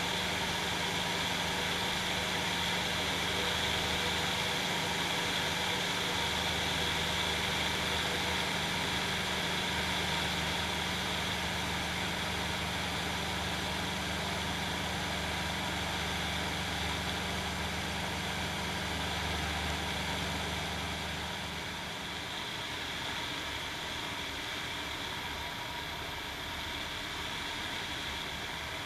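Challenger II ultralight's engine and propeller drone steadily in flight, under a constant rush of airflow noise. About three quarters of the way in, the low engine note fades and the sound gets slightly quieter.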